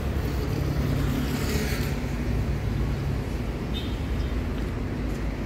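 Large bus diesel engine running steadily, a low rumble with a hum that fades out about three seconds in.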